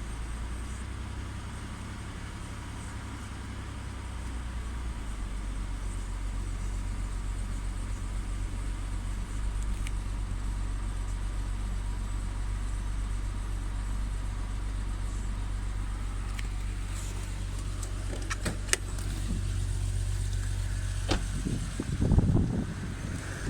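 BMW N52B30 3.0-litre inline-six engine idling with a steady low hum, shaking and vibrating from a combustion misfire on cylinder 6 that new Bosch spark plugs have not cured. A few sharp clicks come late on, then a louder knock near the end.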